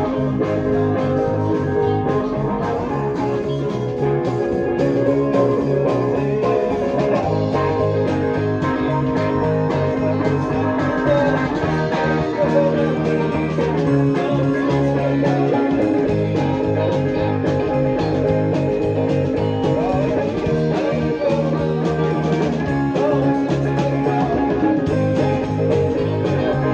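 A rock band playing a song at rehearsal: an electric bass guitar plucked with the fingers carries a moving low line under electric guitar and drums, loud and steady with no pause.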